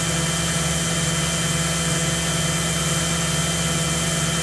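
Kitamura Mycenter 2Xi vertical machining center's spindle running at 5,000 RPM in high gear: a steady whine of several tones over a low hum.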